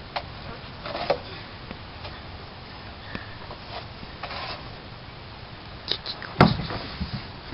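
Scattered knocks and creaks of a child clambering upside down on a wooden playset and plastic slide, with one heavy thump about six and a half seconds in as his body comes down onto the slide, then a few smaller knocks.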